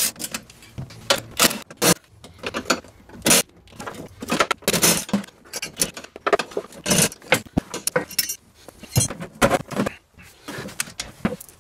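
Irregular metallic clinks and clatters of a hand ratchet on a long socket extension and the metal battery hold-down hardware, as the hold-down is unbolted and pulled out of the battery box.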